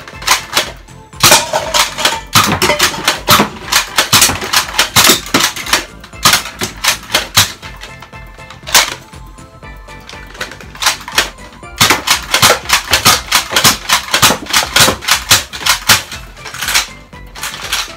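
X-Shot Cool Striker Twin Revolver foam dart blaster being primed and fired repeatedly: two long runs of rapid plastic clacks and pops, one starting about a second in and another about twelve seconds in, with fewer shots in between. Background music plays underneath.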